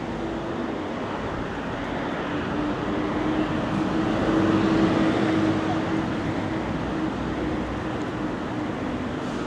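Street traffic: a motor vehicle's engine hum swells as it passes close, loudest about halfway through, then eases back into the steady background noise of the street.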